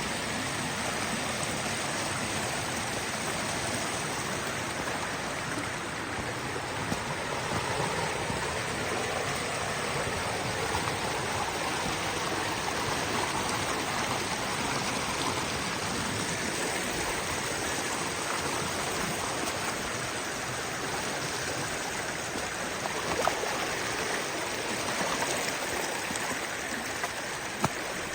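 Creek water rushing steadily over rocks and small falls, with a few brief knocks in the later part.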